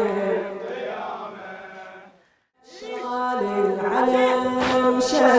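Men chanting a Muharram mourning refrain (latmiya) in chorus. The chant fades out to a brief silence a little over two seconds in, then resumes, with a few sharp slaps near the end.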